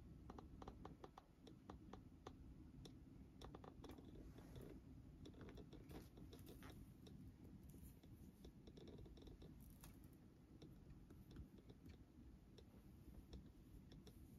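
Near silence: quiet room tone with faint, irregular small clicks, more of them in the first few seconds.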